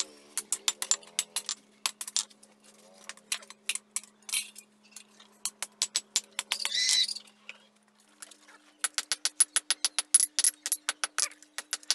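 Hand hammer striking a red-hot chainsaw-bar blade on a steel anvil in runs of ringing blows, about four to six a second, with a break of about a second before a faster run near the end. A steady low hum from the forge's electric blower runs underneath.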